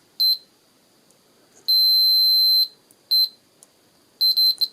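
Piezo beeper sounding a series of short, irregular high-pitched beeps, with one long beep of about a second about two seconds in.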